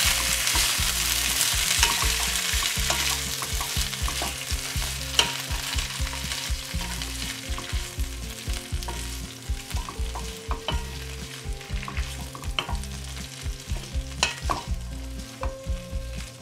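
Cut green beans sizzling in hot oil in a black speckled kadai while a wooden spatula stirs and tosses them, with frequent light knocks and scrapes of the spatula against the pan. The sizzle is strongest at first and gradually dies down.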